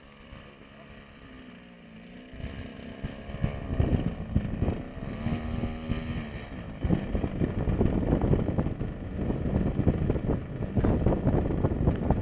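26cc two-stroke gas engine of a Jabberwock RC model biplane running in flight, its pitch rising and falling. From about two seconds in, wind buffets the microphone, a loud gusty rumble over the engine.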